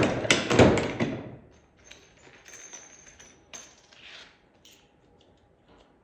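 Tecre Model 100 hand-operated button press being worked: a loud burst of metal clanks and clatter in the first second, then fainter clicks and scrapes as button parts are handled, fading out about four seconds in.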